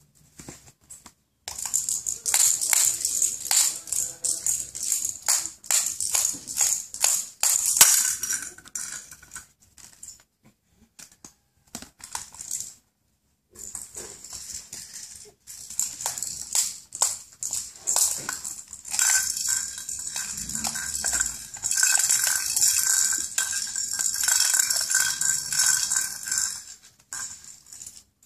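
A small baby's rattle toy being shaken and knocked about on a tiled floor: quick, irregular rattling in fits, broken by a silent pause of about a second midway.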